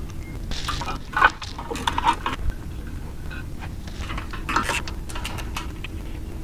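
Wrench and bolts clinking and scraping against the steel motor mount as bolts are taken out, in irregular short clicks, several of them close together about a second and two seconds in and again about four and a half seconds in.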